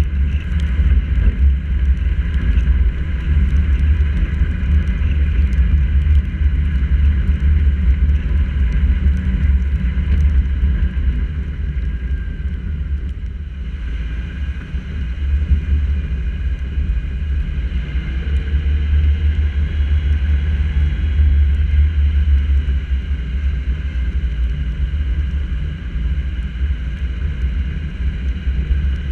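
Muffled, steady low rumble of wind and road noise on a hood-mounted GoPro as the car drives on wet streets, with faint ticks of raindrops on the camera; it eases briefly about halfway through.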